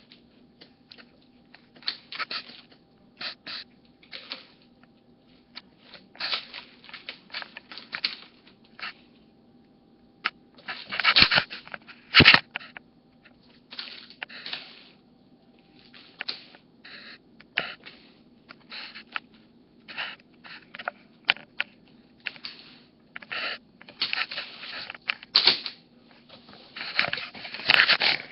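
A cat playing with a string: irregular bursts of scuffling and scratching from its paws and claws, with a sharp knock about twelve seconds in.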